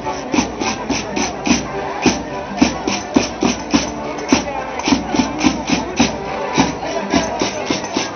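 Madeiran folk band playing a lively dance tune: a button accordion holds the melody over a steady fast beat of wooden sticks struck together and drum thuds, about four strokes a second.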